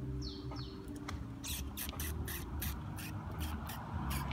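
A quick run of short scratchy rubbing strokes, about four a second, starting about a second and a half in, over a low steady hum, with two short falling squeaks near the start.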